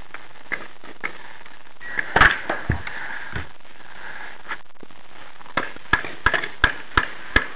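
Paintball markers firing: a loud cluster of pops about two seconds in, then a quick run of six or seven sharp pops near the end, roughly three a second.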